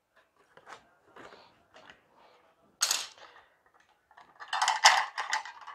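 Plastic parts of a 4-in-1 manual juicer and grater being taken out of a cardboard box and handled: scattered light clicks and rustles, a loud sharp burst about three seconds in, and a run of plastic clattering near the end.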